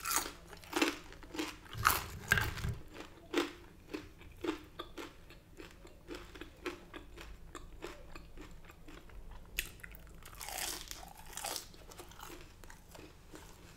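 Close-miked eating of crispy oven-cooked chicken wings and curly fries: sharp crunches in the first few seconds, then quieter, steadier chewing.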